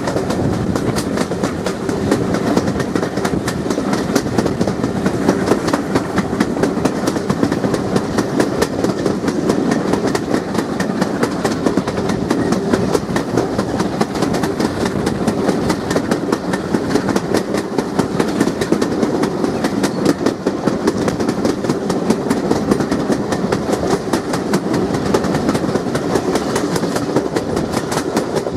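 Steam-hauled train running at speed, heard from an open carriage window: wheels clattering steadily over the rail joints, with the locomotive, GWR 4200-class 2-8-0 tank engine 4270, working ahead under steam.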